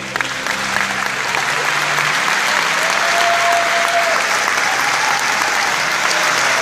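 Audience applauding, swelling up within the first second and then holding as a dense, even clapping.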